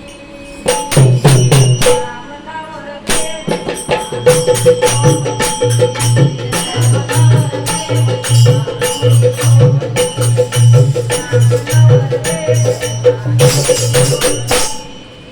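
Instrumental bhajan accompaniment: a steady drum beat with jingling, clicking hand percussion over a held tone. It starts about a second in, pauses briefly, then keeps a regular rhythm.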